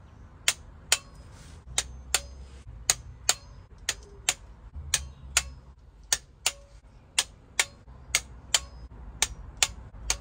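Click-type torque wrench set to 22 newton metres, tightening the lower crankcase bolts. It gives pairs of sharp clicks, about one pair a second, each break-over signalling that a bolt has reached its set torque.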